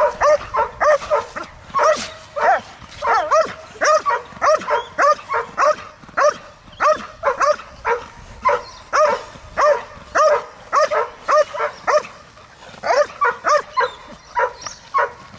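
A dog barking rapidly and repeatedly while straining on a leash at a decoy in a leg sleeve during bite training, about two to three barks a second, with a brief pause about three-quarters of the way through.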